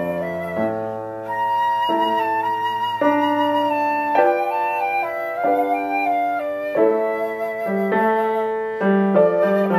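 Silver concert flute and grand piano playing a duet: the flute carries a melody of held notes over piano chords.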